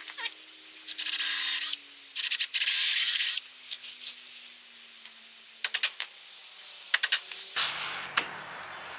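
Two long rasping strokes of a hand tool worked across a teak board, each about a second long, followed by a few light knocks of wood a few seconds later.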